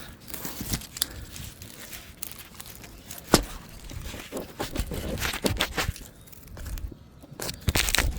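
Rustling, crackling and crunching of cut palm-tree debris, with irregular snaps and one sharp crack about three seconds in.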